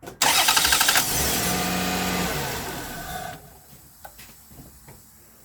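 Loud rush of air and engine-bay noise from a 2002 Toyota Solara as the brake booster is tested. It starts abruptly with a fast pulsing, runs on steadily and dies away after about three seconds. The mechanic takes this air noise for a failing brake booster.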